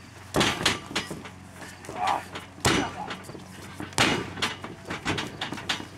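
Wrestlers grappling in a ring: a series of sharp slaps and thuds, about six in all, the loudest two roughly two and a half and four seconds in.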